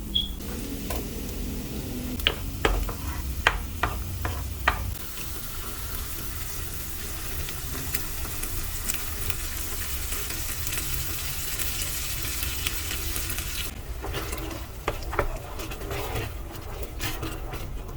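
Food sizzling in a hot pan as it is stirred, with several sharp clicks of a utensil against the pan in the first few seconds. The sizzle cuts off suddenly about three-quarters of the way through, followed by a few more clicks.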